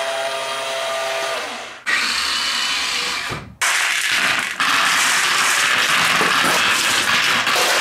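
Radio-controlled dump truck's electric motor whining steadily, fading out about two seconds in. Then many glass marbles, let go by hand, roll and clatter down wooden board ramps in a dense, continuous rattle that grows louder.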